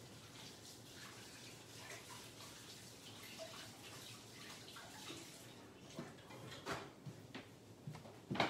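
Kitchen tap running faintly as hands are washed at the sink; the water stops about six seconds in, followed by a few light knocks, the last the loudest.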